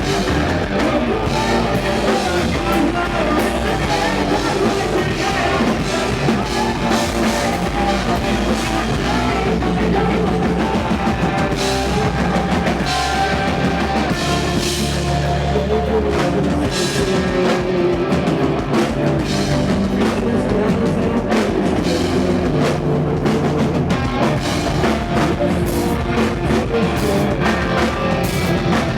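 Rock band playing live and loud, with a drum kit and crashing cymbals prominent.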